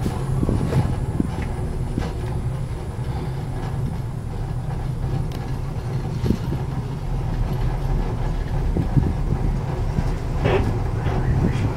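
Steady low rumble inside a moving Maokong Gondola cabin as it runs along its cable, with a few faint knocks.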